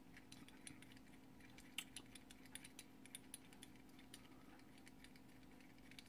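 Faint, irregular small clicks of metal on metal as the adjustment screw is turned out of the Dillon XL650's metal powder bar by hand, over a low steady hum.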